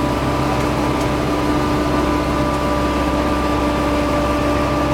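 Ride train's engine running at a steady speed: a constant low hum with a steady whine above it.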